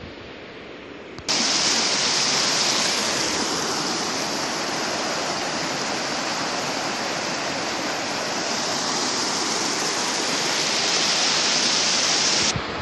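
River water rushing over a low concrete weir, a steady loud hiss that cuts in abruptly about a second in after a faint background hush.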